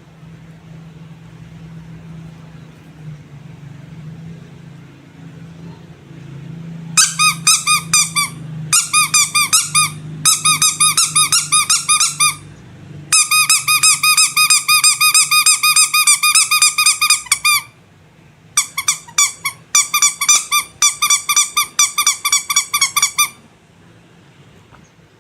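Squeaky rubber animal toy squeezed rapidly over and over, about four or five high squeaks a second, each one bending up and down in pitch. The squeaks come in five quick runs with short pauses between them, starting about seven seconds in; before that there is only a low hum.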